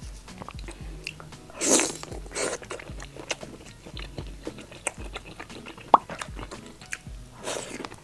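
Close-miked chewing and wet mouth sounds of eating soft stewed oden, scattered small clicks with two louder breathy rushes, about two seconds in and near the end.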